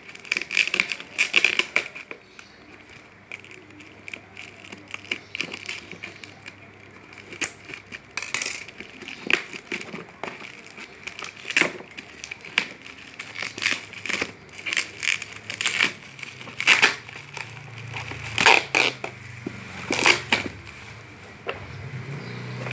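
Stiff plastic packaging being crinkled, snapped and torn as it is worked open by hand, in irregular sharp crackles that come in clusters.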